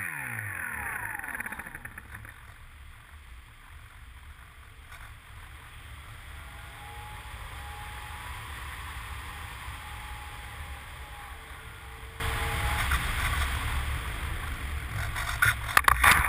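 RC model plane heard from its onboard camera: the motor winds down and fades out at the start, leaving wind rushing over the airframe as it glides in. About twelve seconds in, a sudden louder rough scraping rumble begins as it touches down and slides over the grass, with a few sharp knocks near the end.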